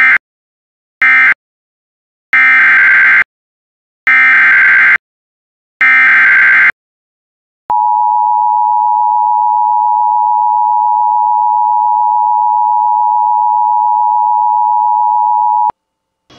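Emergency Alert System data tones. Two short screeching bursts close the previous alert (end-of-message), then three longer bursts about a second each form the header of the next alert. After a short gap the steady two-tone EAS attention signal sounds for about eight seconds and cuts off just before the end.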